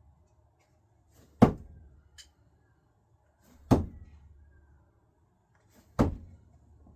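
Three thrown screwdrivers striking the target one after another, each a single sharp thunk with a short ring-out, a little over two seconds apart.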